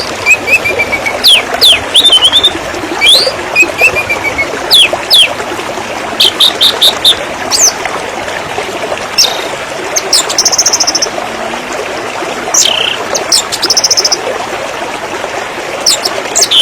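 Steady rush of flowing river water, with birds calling loudly over it: sharp, quick chirps throughout, a short rapid chirp series around six seconds in, and a couple of buzzy trills in the second half.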